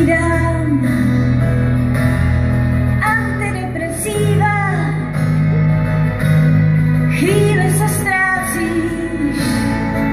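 Live symphony orchestra with a pop band playing a slow ballad's instrumental passage between sung lines: held chords with low notes underneath and a short melodic lead phrase now and then.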